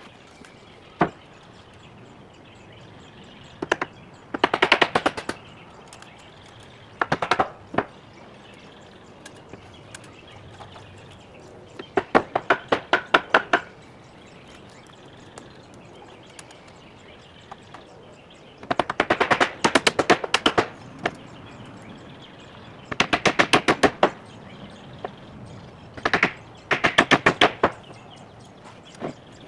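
Cordless impact driver running in six short bursts of rapid hammering clicks, each one to two seconds long, driving fasteners into treated-lumber framing.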